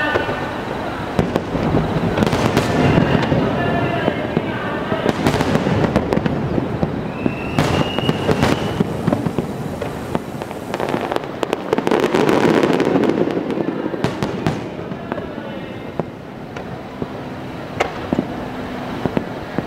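Fireworks display: a rapid barrage of aerial shells bursting, with many sharp cracks over continuous crackling, loudest a little after the middle.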